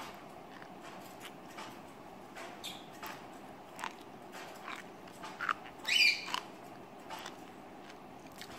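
Close-up mouth sounds of a person eating sea grapes: small wet clicks, lip smacks and slurps as the bead-like strands are sucked in and chewed, with one louder, higher-pitched slurp about six seconds in.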